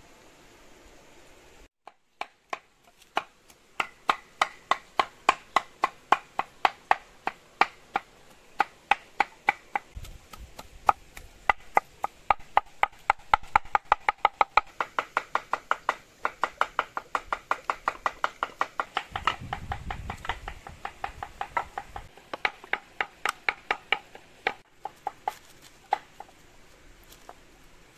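Large knife chopping raw chicken into keema mince on a wooden board: sharp, steady knocks about four a second, pausing briefly now and then.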